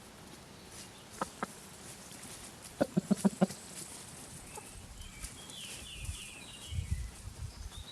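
A chicken clucking: two short clucks, then a quick run of about six clucks about three seconds in. A faint high chirping follows a little past the middle.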